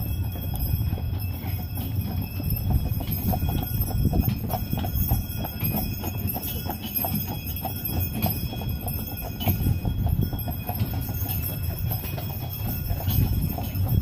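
A horse's hooves clip-clopping in a steady, even rhythm on a hard road, over a continuous low rumble.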